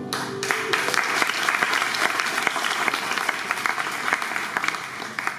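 Audience applauding at the end of a recited poem. The clapping rises quickly over the last notes of the backing music and dies away near the end.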